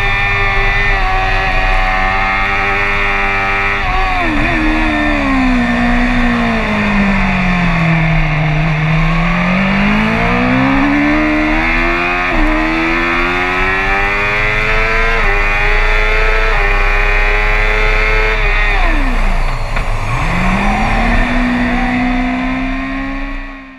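BMW superbike's inline-four engine at full racing pace with heavy wind rush. It climbs through the gears with quick upshifts. The pitch falls steeply under braking and downshifts about four seconds in, and again near the end. Each time it pulls back up, and the sound fades out at the very end.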